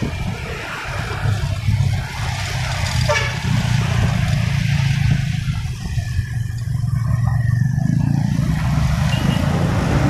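Road traffic heard from a moving motorcycle: a steady low engine hum with road noise, passing among motorcycles and a bus.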